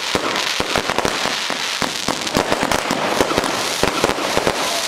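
Fireworks going off: a dense, irregular run of sharp bangs, several a second, over a continuous hiss of burning effects.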